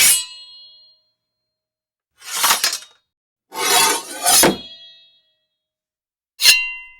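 A string of separate sword sound effects: short metal-on-metal scrapes and clashes of blades, several leaving a high metallic ring that fades over about a second. There are four separated strikes, the second-to-last a quick double, and the last a sharp clang that rings on.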